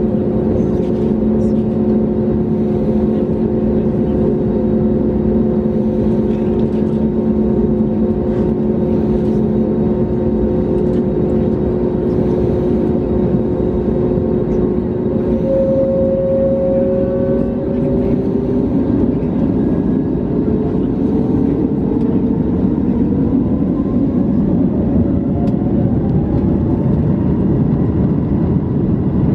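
Airbus A321neo's Pratt & Whitney geared turbofan engines heard from inside the cabin, humming with several steady whining tones. About two-thirds of the way through, the engines spool up for the takeoff roll and the whines rise in pitch over a growing rumble.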